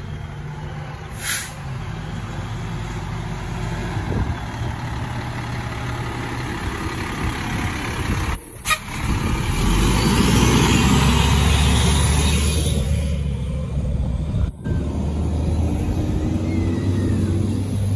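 Fire engine's diesel engine running as the truck drives slowly past, with a short air-brake hiss about a second in. The engine rumble is loudest in the middle as the truck passes close by, and in the last few seconds a smaller vehicle's engine runs.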